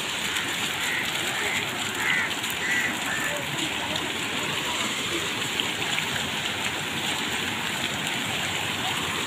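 Steady rush of water tumbling down a stepped garden cascade.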